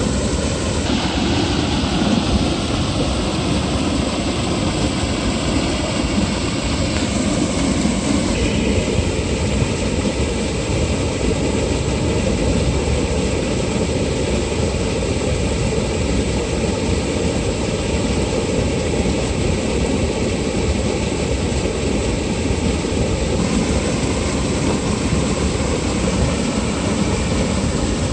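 Loud, steady rush of water gushing from an outlet and churning white in an irrigation channel.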